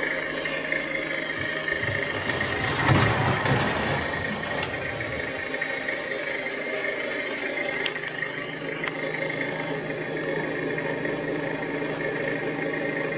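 Radio-controlled scale truck running with a steady mechanical sound, swelling louder for about a second around three seconds in.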